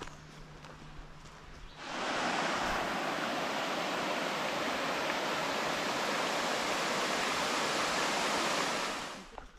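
Creek water rushing down a small cascade over a rock slab, a steady rush that starts abruptly about two seconds in and cuts off near the end.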